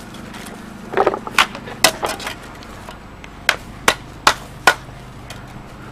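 Sharp knocks of a mason's hand tool striking flagstone while stones are set: a quick run of taps about a second in, then four evenly spaced strikes a little under half a second apart.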